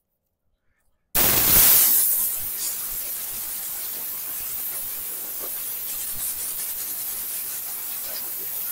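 Compressed-air blow gun on an air hose blasting sanding dust off a truck's freshly sanded fender: a steady hiss that starts suddenly about a second in and is loudest at first.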